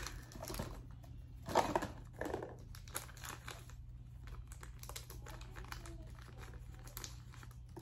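Small clear plastic bag crinkling as it is handled and opened by hand, in short irregular crackles, loudest between about one and a half and two and a half seconds in, then fainter.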